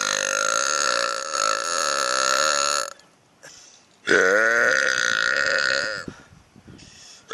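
A man belching twice in long, drawn-out burps: the first, already going at the start, lasts about three seconds, and the second follows after a pause of about a second and lasts about two seconds.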